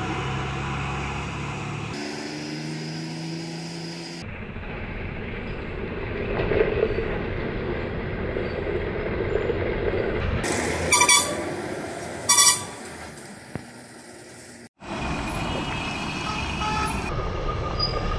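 Heavy truck engines running and labouring on a steep winding road, with two short blasts of a vehicle horn about a second and a half apart, around two-thirds of the way through.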